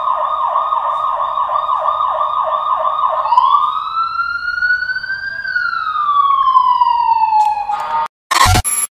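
Electronic police-style siren from a ride-on toy car: a fast warbling yelp of about four sweeps a second, which changes a little over three seconds in to a slow wail that rises and then falls. It cuts off about eight seconds in and is followed by a short burst of noise near the end.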